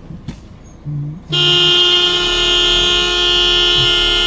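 Air horn sounding: one long, steady blast that starts suddenly about a second in and keeps going, loud and rich in overtones.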